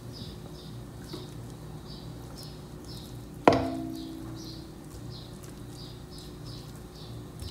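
An aluminium cooking pot clanks once about halfway through and rings briefly as raw beef steaks are tipped into it from a plastic bowl. Under it run a steady low hum and faint, regular high chirps, about three a second.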